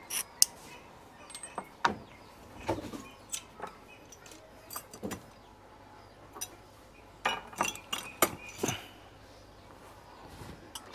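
Irregular light clicks and clinks of small hard pieces being handled, with a busier cluster about seven to nine seconds in.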